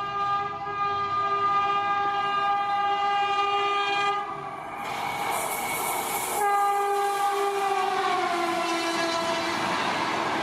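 A high-speed Indian Railways express train sounding two long blasts on its horn. The second blast drops in pitch as the train passes, over the rush and clatter of its wheels on the track.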